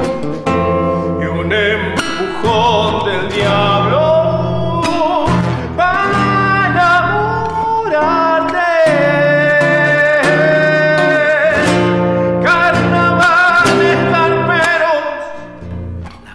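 A man singing a slow Argentine folk song with wavering vibrato on long held notes, accompanying himself on a fingerpicked nylon-string acoustic guitar. Near the end the voice and guitar drop away briefly at the close of a phrase.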